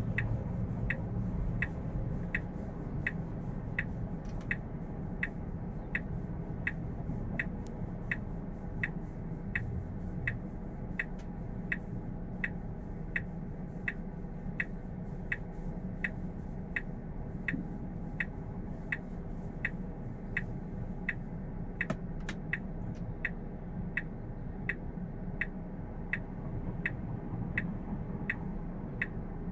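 Turn-signal indicator of a Tesla Model 3 ticking at an even pace of about two clicks a second, heard inside the cabin with the car stopped and only a low steady hum beneath.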